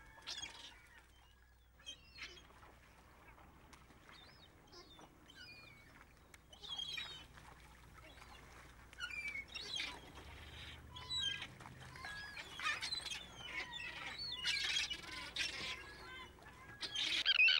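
Waterbirds on a tidal mudflat, a mix of shorebirds and gulls or terns, giving many short calls and chirps. The calls are sparse at first and grow busier and louder in the second half.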